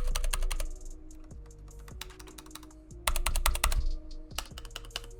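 Redragon mechanical keyboard keys typed in quick flurries: a run of rapid clacks at the start and another about three seconds in, with scattered single keystrokes between.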